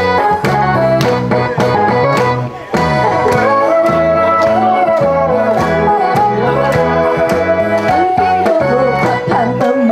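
Korean trot backing music with a steady beat and a melody line over it.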